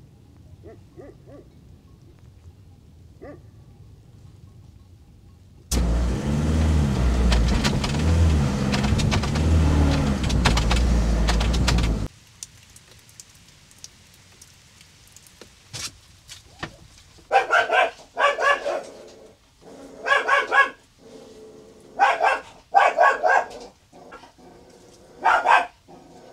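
A vehicle engine runs loud and low for about six seconds, starting and stopping abruptly. Later a dog barks in a series of about seven short barks over the last several seconds.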